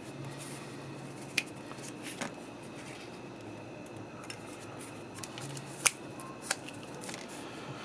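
A few sharp, scattered clicks and taps of a small tool and plastic switch parts being handled while excess electrical grease is worked off a dimmer switch, over a faint low hum.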